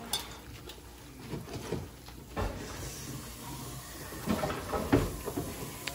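Kitchen clatter: a metal spoon stirring and knocking in a steel saucepan, with a few sharp knocks, several close together near the end.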